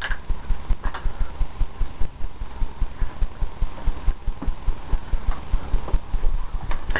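Rapid, uneven low thumps, several a second, of a small camera being handled with its lens covered, over a faint steady high whine.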